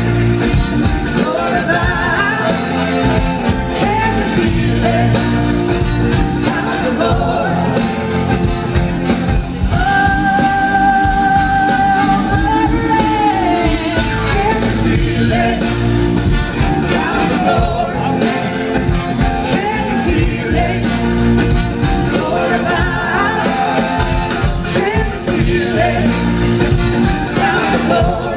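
Live blues-rock band playing: drums, electric guitar and a female lead vocal, with a horn section joining in near the end.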